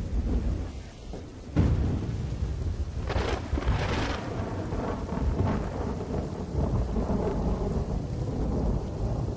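Storm and floodwater noise: a dense rumbling hiss, heaviest in the low end like thunder and heavy rain. It grows louder about a second and a half in and swells again around three to four seconds.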